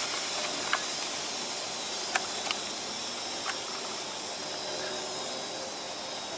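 Red-hot crucible holding a gold ingot quenching in a bucket of water, sending up a steady hiss of steam that slowly fades, with a few faint clicks.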